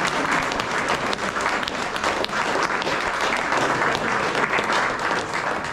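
An audience applauding: dense, steady clapping from many hands that stops abruptly at the end.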